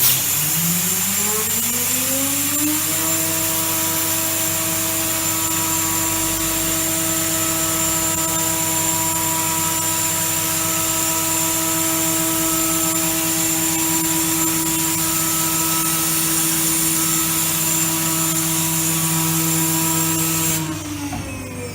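SCM Tech 80 Plus CNC machining centre's spindle spinning up to speed over about three seconds, then running with a steady whine and a rush of air noise. Near the end the air noise cuts off suddenly and the spindle winds down.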